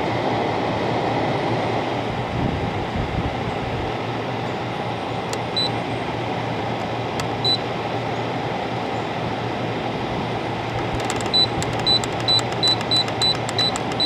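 General Electric 5500 BTU window air conditioner running steadily on its fan, while its control panel beeps at each press of the temperature button: two single beeps in the middle, then a quick run of beeps about three a second near the end as the set temperature is turned down so that the cooling will come on in cool weather.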